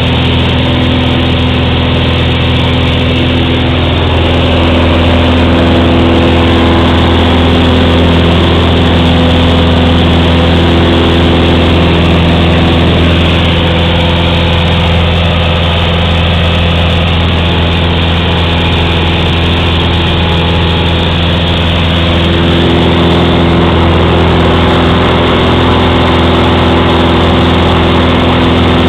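Cessna 182's piston engine and propeller droning steadily in flight, heard inside the cabin.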